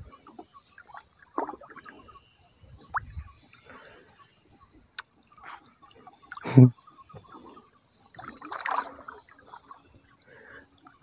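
A hooked fish being played at the side of a small boat, with faint splashes and knocks over a steady high-pitched drone. A short, loud pitched call cuts in about six and a half seconds in.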